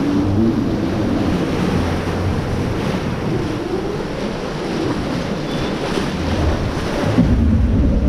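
Churning white water rushing along a river-rapids ride channel around the raft, with wind buffeting the microphone. The low rumble gets heavier about seven seconds in.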